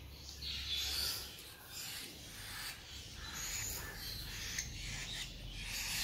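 Cockatiel chick giving repeated short, raspy, hissing food-begging calls while being hand-fed formula from a syringe.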